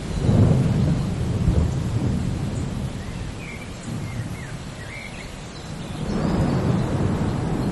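Steady rain with rolling thunder: one low rumble swells right at the start and fades over a couple of seconds, and another builds about six seconds in.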